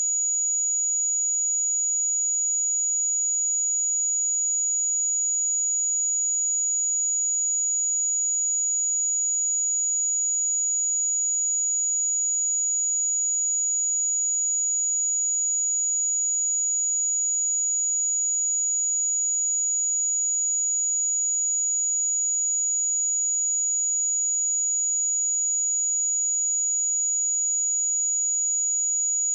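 A pure 6831 Hz sine-wave test tone: one steady high-pitched whistle at a constant level.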